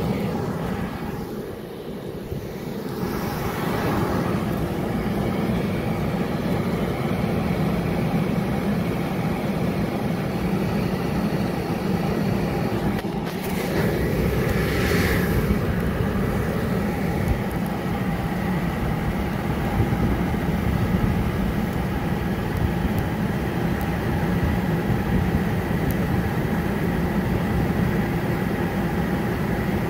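Allegro 9538-25 explosion-proof confined space blower running with a steady whirring drone. A brief rustle of handling or movement comes about halfway through.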